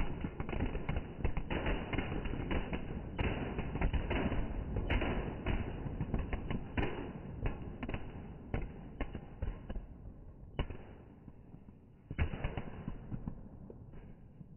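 Murga bomb firecrackers packed into a Royal Enfield Bullet motorcycle silencer going off as a dense, rapid crackle of pops. The crackle thins out after about ten seconds, leaving a few single louder bangs, the loudest about twelve seconds in.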